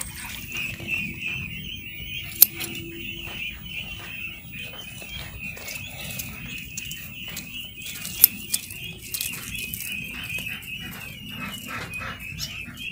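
A flock of young ducklings peeping continuously in a dense chorus of high chirps. A few sharp clicks cut through, the loudest about two seconds in and another about eight seconds in.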